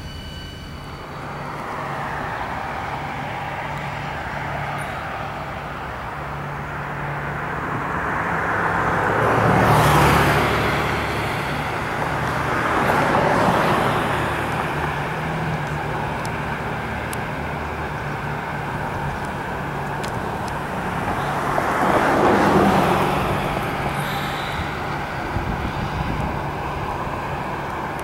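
CSX diesel locomotives of a six-unit light engine move running past, their engines making a steady low drone. The sound swells loud three times, about ten, thirteen and twenty-two seconds in, as units pass closest.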